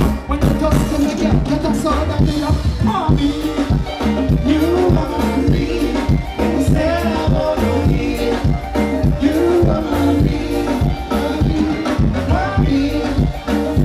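Live band music: a singer over a steady drum beat, with the band playing along.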